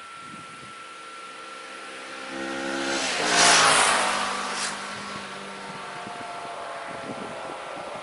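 2016 Kawasaki Vulcan S 650's parallel-twin engine on its stock exhaust, riding past at speed. The sound builds, peaks about three and a half seconds in with its pitch dropping as the bike passes, then fades away.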